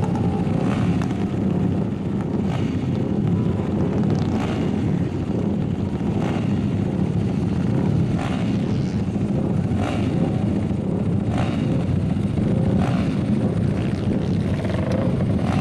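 Several dirt-track motorcycle engines racing around a flat-track oval, a steady loud engine drone with sharp cracks now and then.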